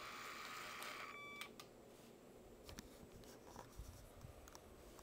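Small Lego Power Functions M motor whining through its reduction gears as it drives the model truck, cutting off about a second and a half in. Faint scattered clicks and light knocks follow.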